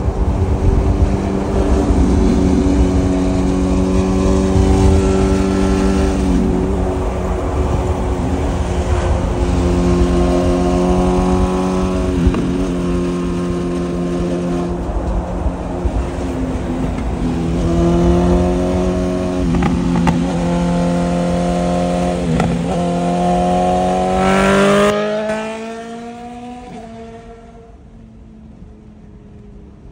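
BMW S1000RR inline-four with an Arrow titanium full exhaust, running alongside at steady cruising speed, with a few brief dips and rises in engine pitch. Near the end it revs up sharply as the bike accelerates away, and the exhaust note fades out. Low road and wind rumble from inside the car sits underneath.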